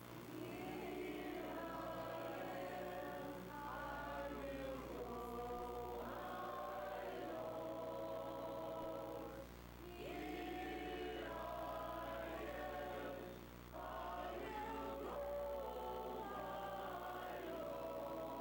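A choir singing in long phrases, with brief breaks about ten and fourteen seconds in. A steady low hum runs beneath.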